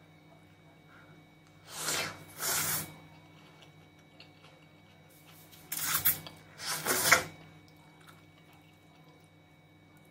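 Noodles slurped into the mouth: two pairs of loud slurps, one pair about two seconds in and another about six seconds in.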